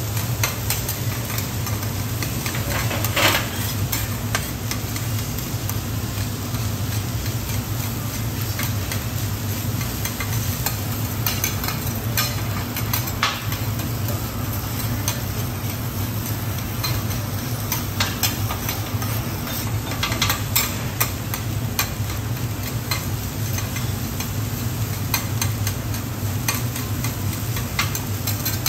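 Garlic fried rice sizzling on a steel teppanyaki griddle while spatulas chop and scrape through it against the metal plate, with frequent sharp clicks, over a steady low hum.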